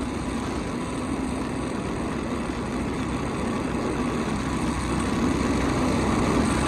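Vehicle engine running steadily with road and wind noise while being driven, growing slightly louder toward the end.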